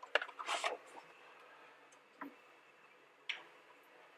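Paper transfer sheet being slid over and lifted out of a cardboard box: a short burst of rustling and scraping in the first second, then two faint taps about a second apart.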